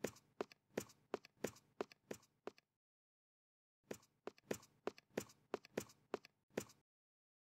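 Footsteps: sharp, hard-soled steps at a walking pace of about three or four a second, in two runs with a silent pause of about a second between them.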